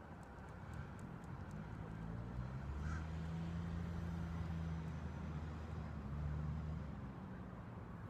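A low engine drone, as from distant traffic, swells over a few seconds, holds, and fades again, with one faint short call about three seconds in.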